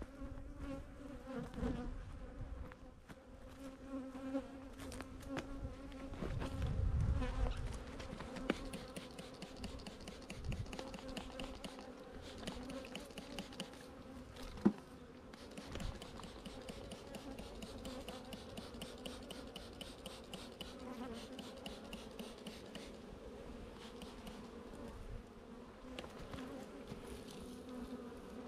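Honeybees buzzing around their hives, a steady hum with a constant pitch. A low rumble swells about six to eight seconds in, and a single sharp click comes about halfway through.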